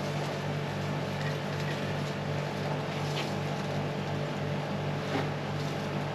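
A steady mechanical hum with a few faint light ticks.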